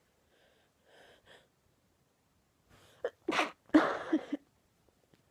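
A woman sneezing: faint breaths about a second in, then from about three seconds a quick run of sharp bursts ending in one loud, voiced sneeze near four seconds.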